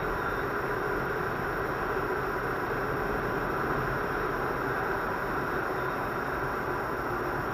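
Steady road and engine noise of a car driving at a constant speed, heard from inside the cabin.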